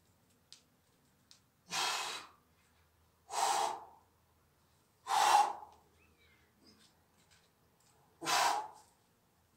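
A boulderer's forceful breaths out with the effort of hard moves on a steep overhang: four sharp exhalations, each about half a second long, spaced one and a half to three seconds apart.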